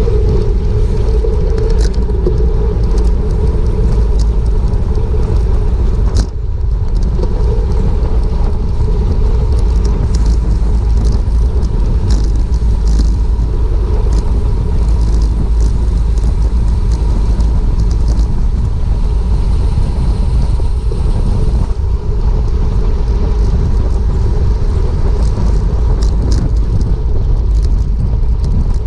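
Wind rushing over an action camera's microphone on a bicycle at racing speed: a loud, steady rumble, mixed with road and tyre noise and scattered faint ticks.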